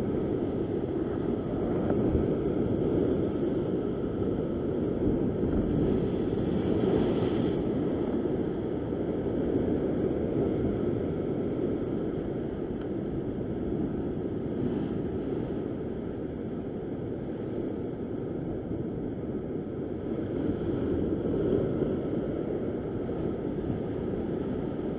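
Ocean swell surging and washing against the rock ledge below, mixed with wind buffeting the microphone: a steady rushing noise that swells a little about seven seconds in.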